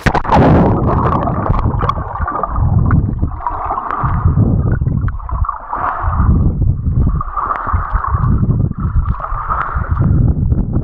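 Underwater sound heard through a waterproof action camera: a sudden plunge into the water, then a muffled rush and gurgle of lake water that swells about every two seconds, as with swimming strokes.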